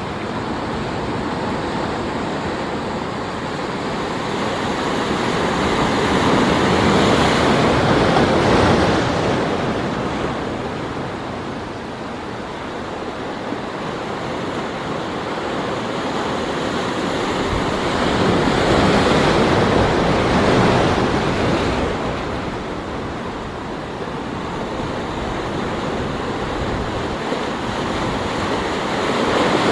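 Sea surf breaking and washing over a rocky shore, a steady rush of water that swells louder twice, about a quarter of the way in and again around two thirds of the way through.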